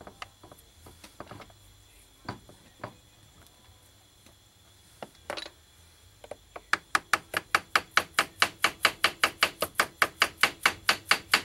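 Light mallet taps on a Ford Cruise-O-Matic transmission governor to drive it off the output shaft, where it is stuck fast after decades in place. A few scattered knocks and clicks come first, then a fast, even run of sharp taps, about five a second, starts a little past the middle.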